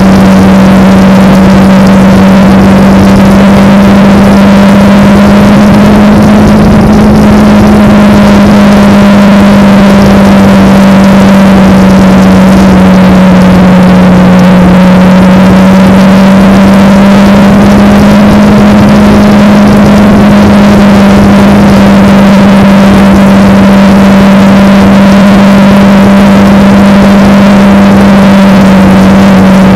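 Kawasaki Ninja motorcycle's parallel-twin engine running at a steady cruise, its pitch holding nearly level with only slight rises and falls, under a constant rush of wind noise.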